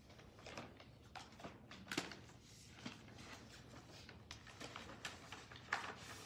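Faint, scattered rustles and light taps of paper: large envelopes and magazines being handled and stacked.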